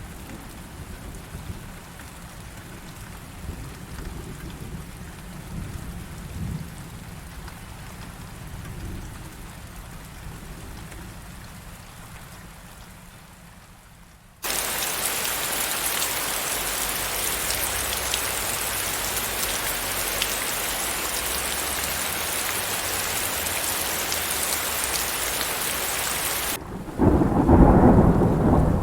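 Thunderstorm: low rolling thunder rumbles and fades over the first half. About halfway through, heavy pouring rain cuts in abruptly as a loud, steady hiss. Near the end a loud thunderclap rumbles as the rain hiss drops away.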